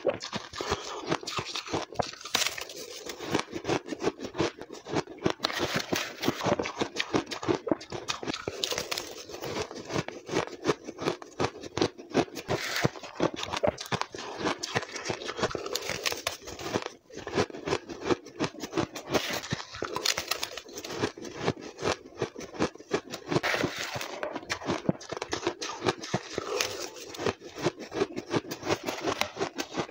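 A person chewing mouthfuls of finely blended ice: dense, continuous crunching, heard close up through a clip-on microphone.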